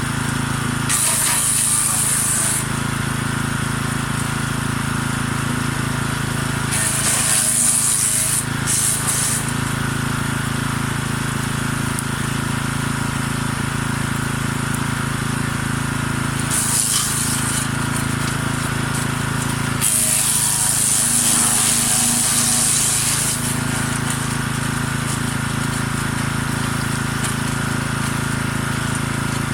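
Forest Master FM6DD 6 hp petrol wood chipper running steadily, with four bursts of hissing shredding noise as branches are fed through: about a second in, around seven seconds, around seventeen seconds, and a longer one around twenty seconds.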